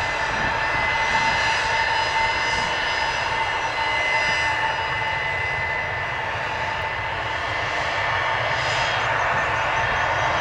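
Gulfstream G600 business jet's two Pratt & Whitney Canada PW815GA turbofans running at taxi power: a steady high-pitched whine over a rushing jet noise as the aircraft taxis.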